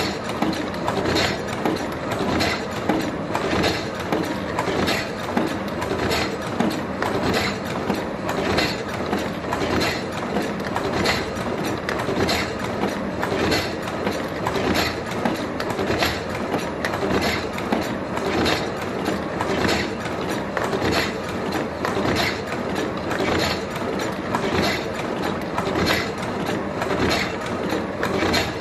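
Fully automatic two-line siomay/dim sum forming machine running: a steady mechanical clatter with a sharp clack repeating at an even beat, a little over once a second.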